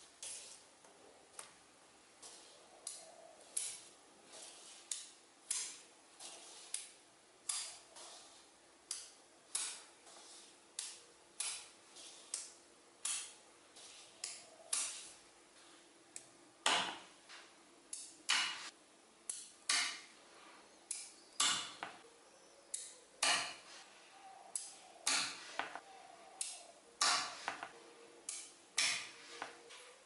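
Small neodymium magnetic balls snapping onto a sheet of magnetic balls, sharp metallic clicks about once a second or a little faster, the loudest about two thirds of the way in.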